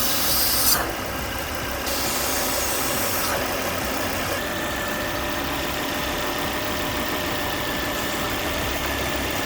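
Volvo C30's 2.4-litre inline-five (B5244) engine idling steadily. Bands of high hiss come and go in the first three seconds, and a faint steady high tone joins from about halfway through.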